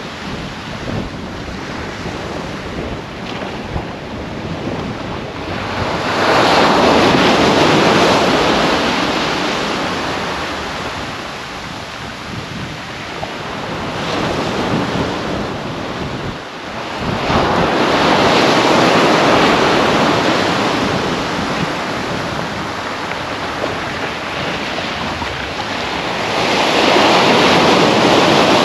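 Sea surf breaking on a beach, the rush of each wave swelling up three times about ten seconds apart, over a constant wash of water and wind.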